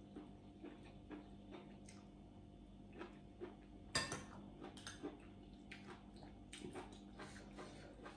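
Quiet eating sounds: soft chewing and small mouth clicks, with a metal spoon clinking against a ceramic bowl, loudest about four seconds in, over a faint steady hum.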